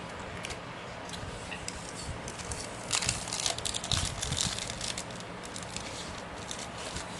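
Packaging being handled and unwrapped: irregular crinkling and small clicks, busiest about three to four and a half seconds in, over a steady background hiss.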